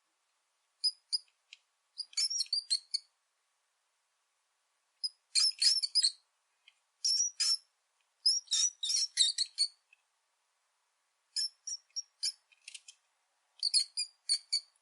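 Rat squeaking: quick high-pitched squeaks and chirps in short clusters of a second or so, with silent pauses between them.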